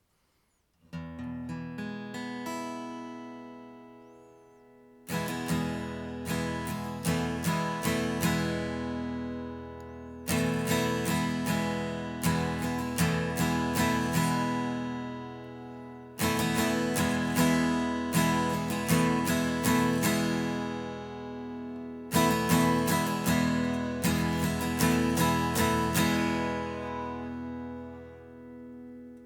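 Replica Gibson J-200 jumbo acoustic guitar, on its factory strings, saddle and bridge pins, played in a run of chords. It starts softly about a second in, then plays four louder phrases, each struck and left to ring out.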